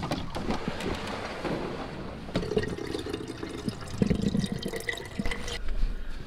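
Water pouring in a steady stream from the spigot of a plastic water jug into an enamel coffee percolator. It stops abruptly about five and a half seconds in.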